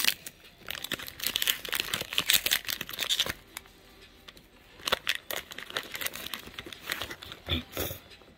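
Foil Pokémon booster pack wrapper crinkling and tearing as it is opened by hand, in irregular spells of rustling that are busiest in the first few seconds, with a lull around the middle.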